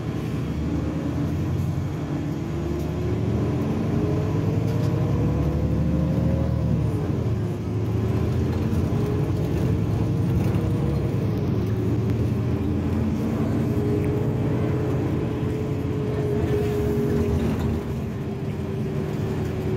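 Inside an Irisbus Citelis city bus under way: a steady engine drone with a whine that rises in pitch, drops sharply about six or seven seconds in, then holds level.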